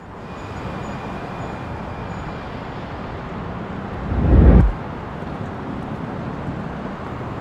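City ambience of distant traffic, fading in, with a low rushing swell about four seconds in that cuts off suddenly.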